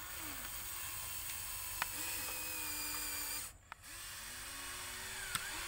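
A small motor whining at a steady pitch, with short rises and falls in pitch. It cuts out briefly about three and a half seconds in and then starts again, and a few sharp clicks come through.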